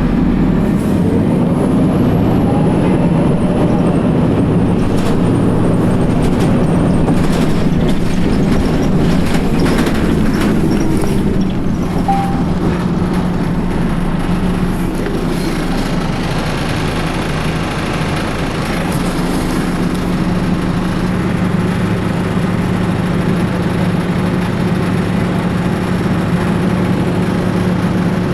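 2004 New Flyer D60HF bus's Detroit Diesel Series 50 EGR engine running with a steady low drone. A thin high whine is heard over it in the first few seconds, and a run of clicks and rattles follows a few seconds in.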